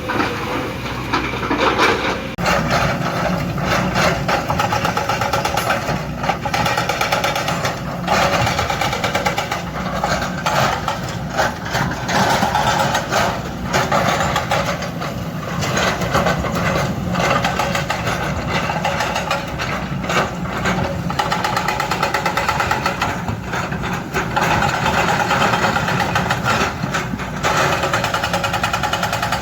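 Hydraulic breaker on a Kobelco excavator hammering rock in rapid, continuous blows over the excavator's running diesel engine, with a few brief pauses.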